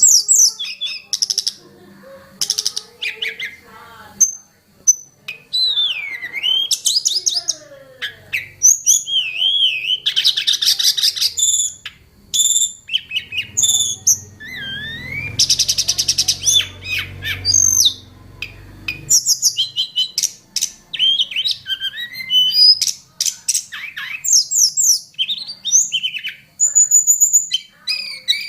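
Tledekan gunung bird singing a long, varied run of quick high chirps, trills and whistled phrases, broken by short pauses.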